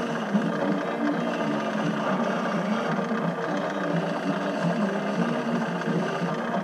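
Chinese mini lathe running steadily with its motor whirring, while a small chamfer is cut on the edge of an aluminium part.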